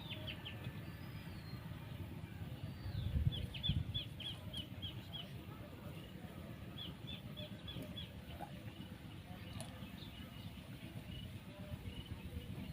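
A small bird calling in quick runs of short high chirps, twice, over a steady low rumbling noise that swells briefly about three seconds in.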